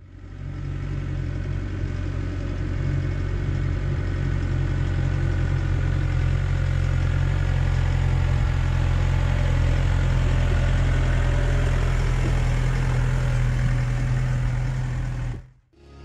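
Case Farmall 75C tractor's diesel engine running steadily under load as it pulls a loaded tipping trailer. It grows louder over the first few seconds as it draws near and passes close, then cuts off abruptly near the end.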